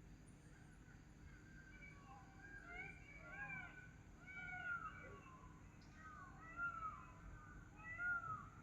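Several animals mewing at once, with short high cries that arch up and down in pitch and overlap. They begin about a second and a half in and grow louder toward the end.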